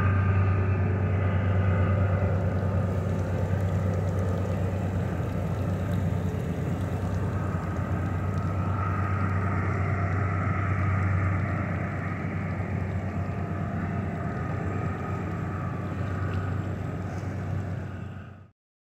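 A small boat's motor running steadily, a low hum with water and wind noise over it. It fades out suddenly near the end.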